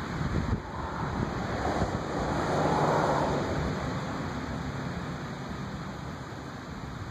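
Wind buffeting the microphone outdoors: an uneven low rumble throughout, with a rushing gust that swells about two and a half seconds in and slowly fades.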